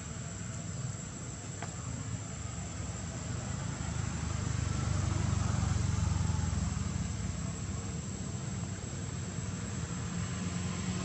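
Low rumble of a vehicle passing, swelling to its loudest about halfway through and then fading, over a steady high-pitched insect drone.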